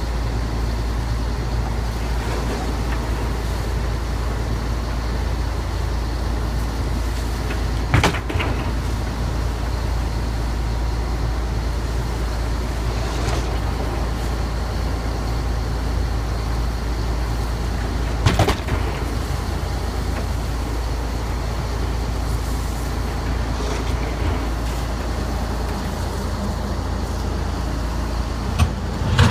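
Lobster boat's engine running steadily underway, a deep drone with the rush of wind and wake over it. Three sharp knocks come about ten seconds apart.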